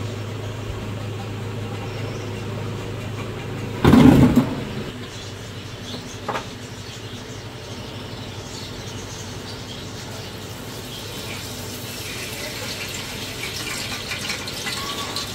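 Liquid poured into a large aluminium pot, a splashing hiss that builds near the end. Earlier there is a low steady hum and one loud thump about four seconds in.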